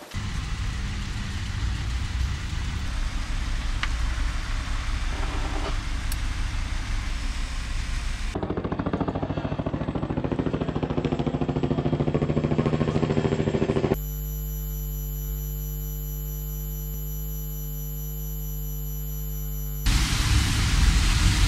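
Engine-like low rumble with hiss, in sections that switch abruptly: a fast, even pulsing rumble in the middle, then a steady hum with several fixed tones, then a louder rumbling hiss near the end.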